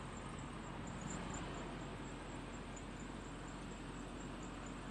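A faint, steady low engine hum with an even hiss over it, typical of diesel engines idling.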